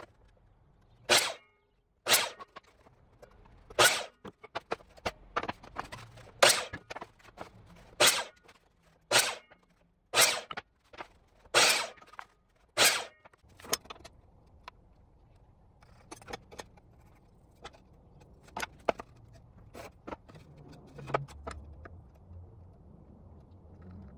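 Wooden boards knocking as they are handled and set down on a miter saw's table: about ten sharp knocks roughly a second apart, then fainter taps and handling sounds in the second half.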